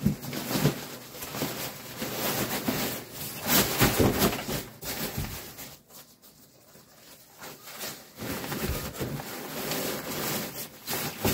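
Stuff-sack fabric and a rolled self-inflating sleeping pad rustling and scraping against each other as the pad is pushed into the sack, in irregular handling noises with a quieter stretch about halfway through.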